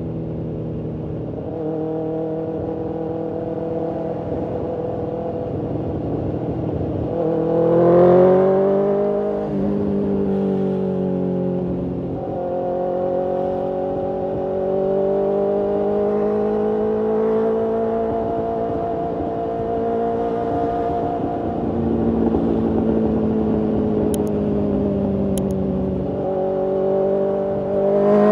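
BMW S1000RR's inline-four engine and exhaust heard from the bike while riding in traffic. It revs up hard about eight seconds in, drops back, holds a steady cruising note, and climbs again near the end.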